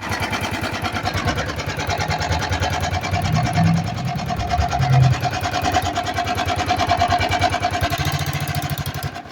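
Italika FT150 motorcycle's single-cylinder 150 cc four-stroke engine running at idle with a rapid, even clatter, then cutting off near the end.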